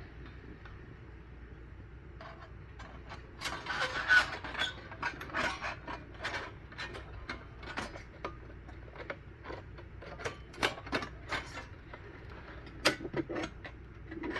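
Metal parts of a small folding charcoal barbecue grill clinking and knocking as they are slotted together: an irregular run of sharp clicks and scrapes starting about two seconds in.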